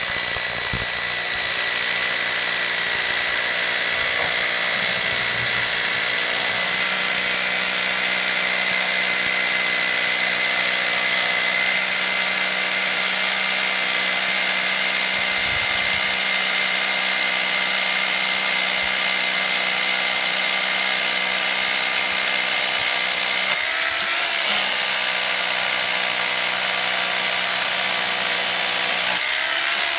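Corded hammer drill boring a hole into granite with a 3/8-inch bit, running steadily with a high motor whine. The motor note dips briefly about 24 seconds in and again near the end.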